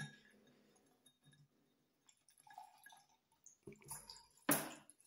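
Vinegar cleaner poured from a plastic bottle into a glass: faint trickling and dripping of liquid, with one short louder noise about four and a half seconds in.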